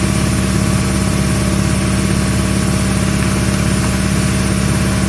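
Air compressor running steadily and loudly, its pump making a fast, even pulsing hum. It has kicked on because it was left switched on.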